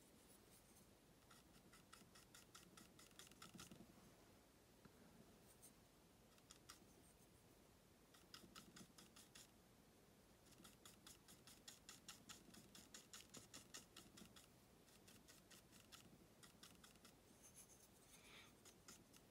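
Faint, rapid scratching of a bristle paintbrush worked against a primed masonite panel, in runs of quick strokes, several a second, with pauses between.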